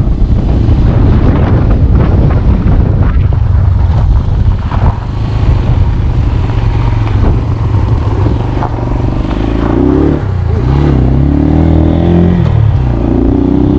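Small motorcycle engine running under way, with wind buffeting the microphone. From about ten seconds in the engine note climbs, drops and climbs again as the bike accelerates up through the gears.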